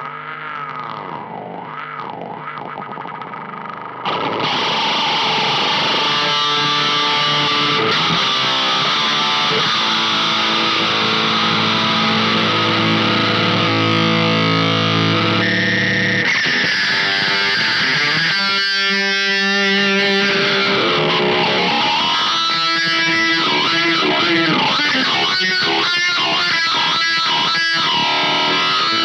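Electric guitar played through the Intensive Care Audio Vena Cava Filter pedal: distorted notes with a moving, LFO-swept filter. About four seconds in the sound jumps louder and brighter as the pedal's knobs are turned, and in the second half the filter sweeps and pulses through the notes.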